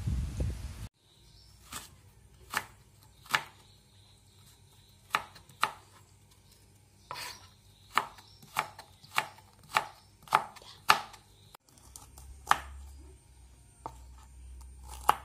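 A kitchen knife cutting carrot slices, then cauliflower florets, on a plastic cutting board: sharp knocks of the blade on the board. The strokes are uneven at first, then come at about one every 0.6 s for a few seconds, and turn sparser and softer for the cauliflower. A low rumble fills the first second.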